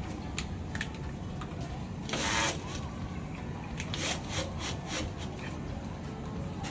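Scattered clicks and knocks of a cordless drill-driver and metal fittings being handled, with one half-second rasping burst about two seconds in and a quick run of clicks between four and five seconds.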